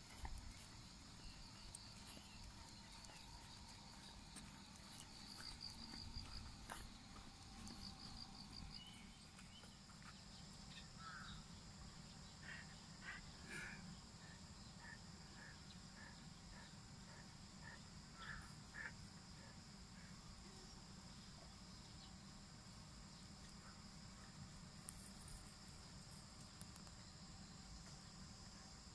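Faint steady high-pitched chirring of crickets or other insects, over a low rumble of outdoor background noise.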